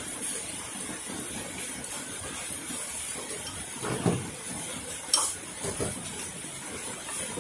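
Eating utensils clinking and knocking against bowls and dishes at a hotpot meal. There is a sharp clink about five seconds in, over a steady hiss.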